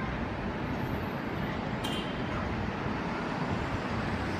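Steady outdoor rumble and hiss, like wind and distant traffic, with no beat or whir of its own from the exhaust fan turning in the wind.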